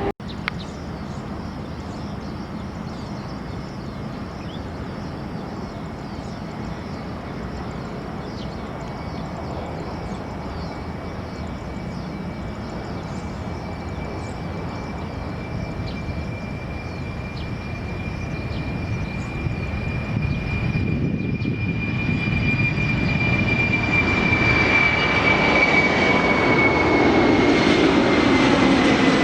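Jet airliner's engines running as it approaches, growing steadily louder in the last third, with a high turbine whine that sharpens and then slides down in pitch near the end as the aircraft passes.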